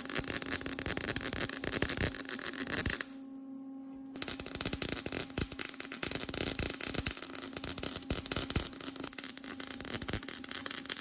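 MIG welder arc crackling and spitting, run without shielding gas, over a steady transformer hum. It cuts out for about a second around three seconds in, leaving only the hum, then strikes again and runs on.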